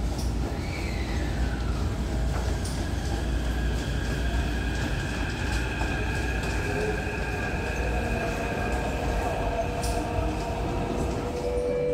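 Taipei Metro electric train pulling out of an underground station: a steady low rumble of the wheels on the rails, with the whine of the electric traction motors and a tone falling in pitch about a second in.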